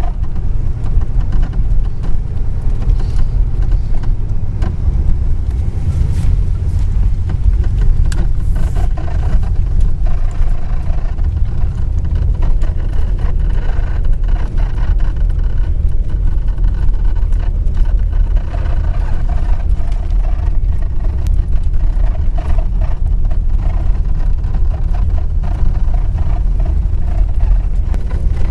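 Chevrolet Caprice being driven, a steady low rumble from the road and engine, with creaks, clicks and squeaks coming and going from the car's body or suspension.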